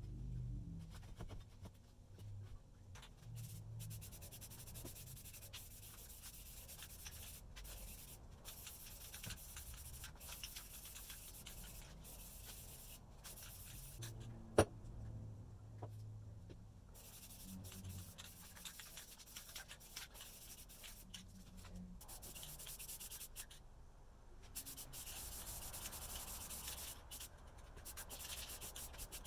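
Abrasive rubbing by hand in repeated strokes, like sanding or scrubbing a metal or wooden plane part. A single sharp click about halfway through.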